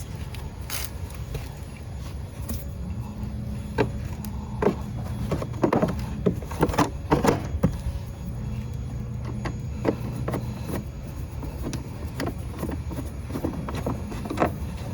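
Honda Today scooter's small engine running steadily, with a string of sharp clicks and knocks over it, thickest in the middle.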